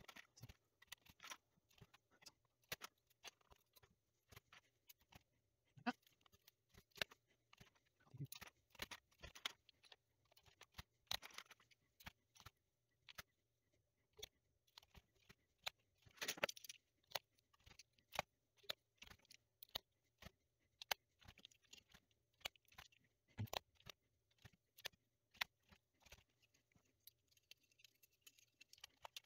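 Plastic keycaps of a Commodore 64 keyboard clicking and tapping as they are pushed back onto their spring-loaded key plungers, in quick, irregular light clicks, with a louder clatter of handling about halfway through.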